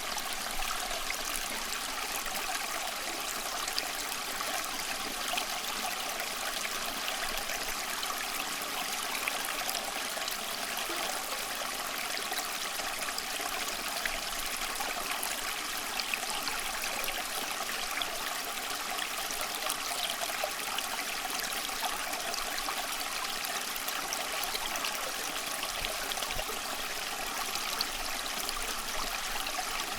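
Running water flowing steadily, as in a small stream: an even rush with many fine splashes and trickles, unchanging throughout.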